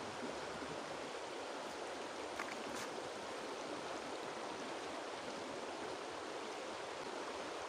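Shallow river rushing over stones: a steady, even rush of water.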